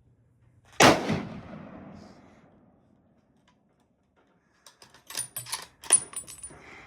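A single loud gunshot about a second in, with a long echoing decay. Several sharp metallic clicks and clinks follow near the end, some with a brief high ring.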